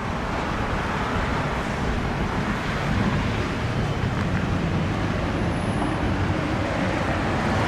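Steady road traffic noise: a continuous rumble and hiss of vehicles, with no single distinct event.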